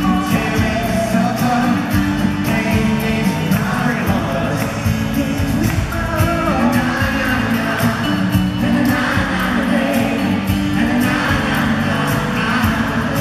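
Live acoustic pop song: several acoustic guitars strummed with a keyboard, and male voices singing into stage microphones. The sound is heard through the arena's PA from out in the audience.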